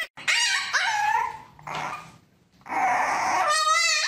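A dog growling and barking in three bursts, the last one longer with a wavering pitch.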